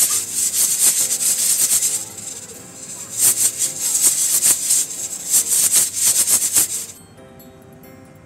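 Pressure cooker hissing steam through its valve in rapid, rattling spurts, with a lull about two seconds in; it stops about seven seconds in. Background music plays underneath.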